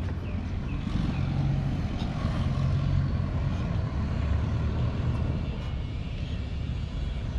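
Low, steady drone of a large engine running, swelling slightly after about a second.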